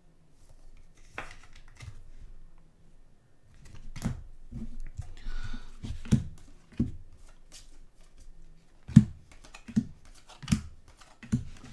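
Trading cards being handled by hand: cards slid and shuffled with a brief rustle about five seconds in, and a series of sharp taps on the table in the second half.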